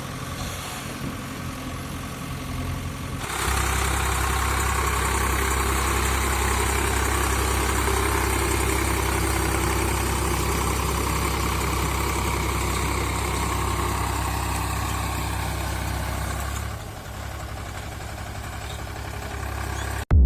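Engine idling steadily with a low hum. It gets abruptly louder about three seconds in and drops back abruptly near the end.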